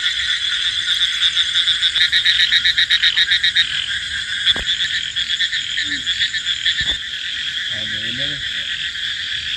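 A loud chorus of many frogs calling at night after rain, a dense steady din with a run of fast pulsed calls in the first few seconds.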